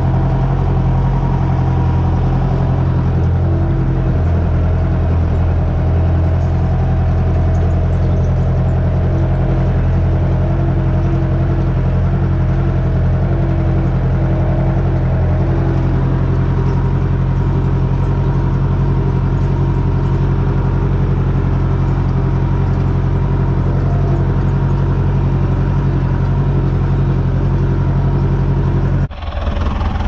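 Air-cooled Deutz diesel tractor engine running steadily, heard from the driver's seat while the tractor drives across the field; the sound breaks off abruptly about a second before the end.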